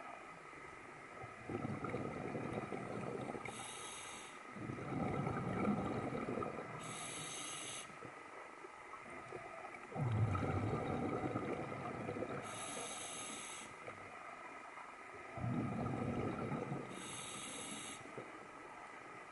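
Scuba diver breathing through a regulator underwater: slow, recurring breaths, each a gurgling rush of exhaled bubbles several seconds apart, with short hisses in between.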